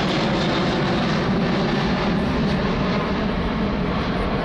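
Airbus A380 airliner flying low past, its four turbofan engines giving a steady, loud jet noise.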